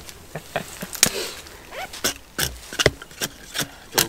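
Dry wood being broken up as kindling for a campfire: irregular sharp snaps and cracks, two or three a second, with a short rustle about a second in.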